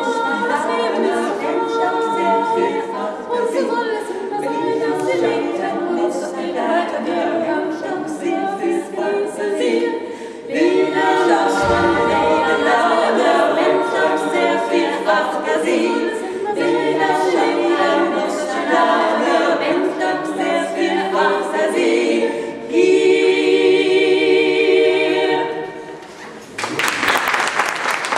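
Female vocal quartet singing a cappella in close harmony. The song ends about two seconds before the close, and applause breaks out.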